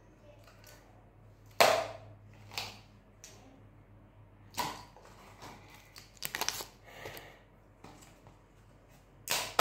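Sharp plastic clicks and knocks from small paint pots and a clear plastic slime tub being handled and the tub's lid worked open. The loudest click comes about one and a half seconds in, scattered single clicks follow, a quick run of clicks comes a little after six seconds, and two more land near the end.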